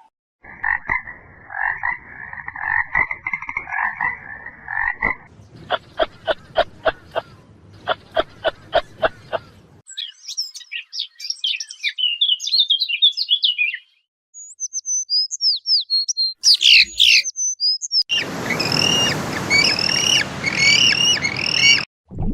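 A string of animal calls: frogs calling, first a repeated pitched call and then a run of sharp rapid croaks, followed by high bird chirps and birdsong over a rushing background for the last few seconds.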